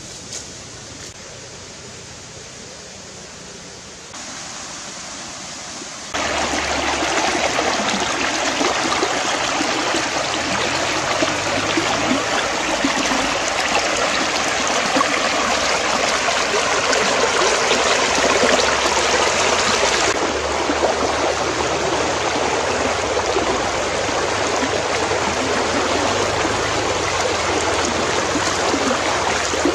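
Shallow rocky stream rushing over stones, a loud steady wash of water. The first few seconds are much quieter, and the water sound jumps up about six seconds in.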